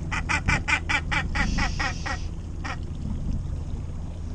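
A northern gannet, hooked on a trolling lure, calling: a rapid run of about ten calls over two seconds, then one more.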